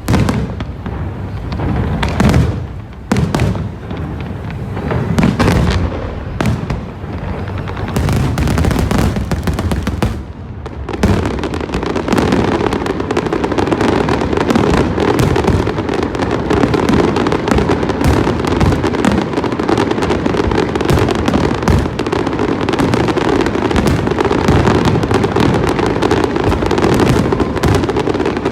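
A large fireworks display. For about the first ten seconds there are separate booming shell bursts with short gaps between them. About eleven seconds in, it turns into a dense, unbroken barrage of bangs and crackling.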